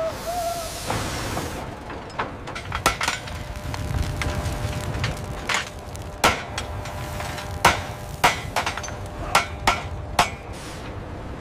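Blacksmiths' hand hammers striking hot iron on anvils: about a dozen irregular, sharp metal blows with a short ring, starting about two seconds in.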